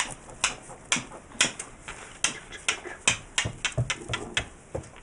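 A quick, irregular run of sharp clicks and knocks, about three a second, of small hard objects being handled.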